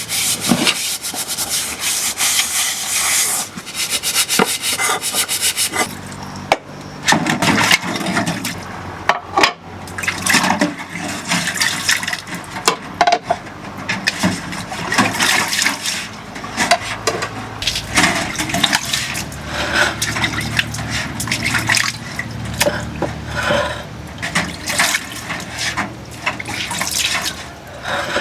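Dishes being washed by hand: scrubbing, then water splashing and pots and utensils knocking irregularly, with a steady low hum underneath from about a third of the way in.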